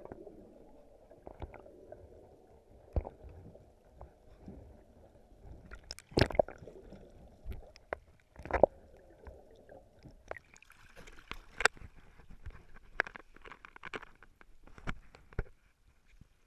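Muffled underwater noise picked up by a camera held in the water, with irregular knocks and clicks. The sound turns hissier about ten seconds in.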